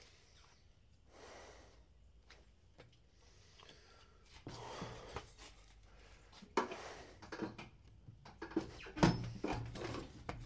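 Clicks, knocks and rattles from the parts of a manual rotary screen-printing press being handled and adjusted, starting about four seconds in and loudest near the end, after a few audible breaths from the printer.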